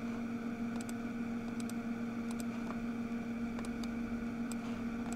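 Quiet room tone with a steady electrical hum and faint, irregular clicking at a computer.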